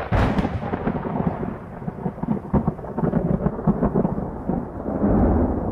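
Thunder sound effect: a sharp crack of thunder just after the start, followed by a long rolling rumble that swells and falls.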